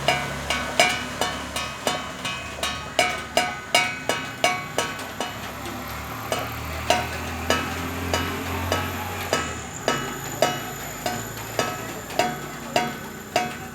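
A metal pan struck over and over, about two to three strikes a second with a few short pauses, each strike ringing briefly with a clanging tone.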